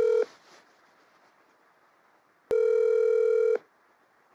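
Telephone ringback tone: a steady electronic beep that stops just after the start and sounds again for about a second midway through, with faint line hiss in the gap.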